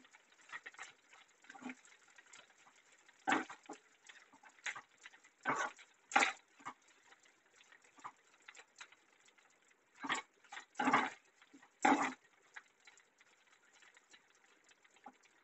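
Steel spoon stirring and scraping sliced onions, green chillies and ginger frying in oil in a nonstick kadhai, in irregular strokes with a faint steady hiss between them.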